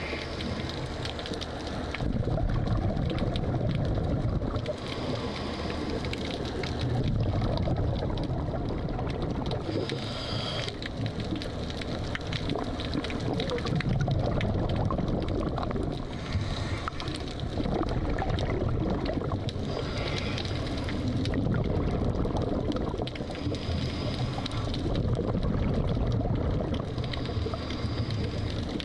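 Scuba diver breathing through a regulator underwater: exhaled bubbles bubbling and gurgling in slow rhythmic bursts, every four to five seconds, with a brief hiss between them.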